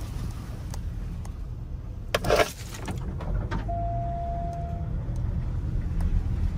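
Car driving slowly along a grassy farm track, a steady low rumble of engine and tyres. About two seconds in there is a short loud burst of noise, and a little later a single steady beep lasting about a second.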